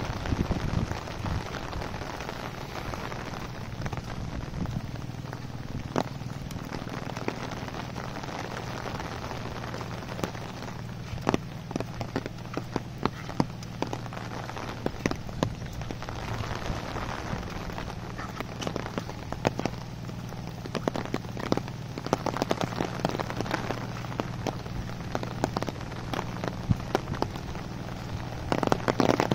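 Steady monsoon rain falling, with many sharp, irregular raindrop taps close by and a steady low rumble underneath.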